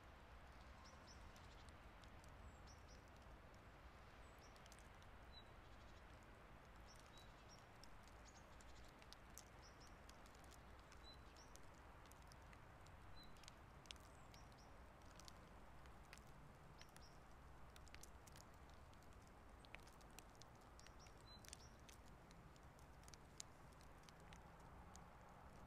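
Near silence: a faint outdoor hush with scattered soft ticks of light falling snow, and a few faint high chirps.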